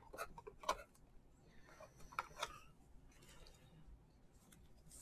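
Faint, scattered clicks and light scraping of baseball trading cards being handled and flipped through.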